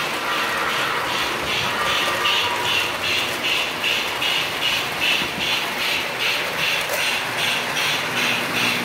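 O scale model trains running on three-rail track, a steady mechanical running noise with an even rhythmic pulsing a few times a second.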